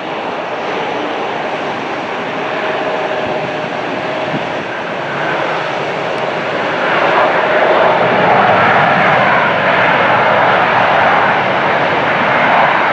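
Jet engine noise of a Bombardier CRJ regional jet rolling out on the runway just after touchdown: a steady rush that grows louder about seven seconds in.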